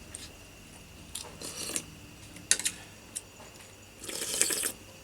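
A person eating a meal: a few sharp clicks of a utensil against a dish, short noisy bursts of eating, and a longer noisy slurp about four seconds in.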